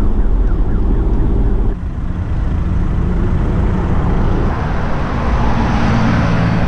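Steady road rumble inside a Volkswagen van on the move, cut off abruptly about two seconds in. Then roadside traffic noise beside a highway, with the rush of a passing vehicle swelling from about four seconds in and peaking near the end.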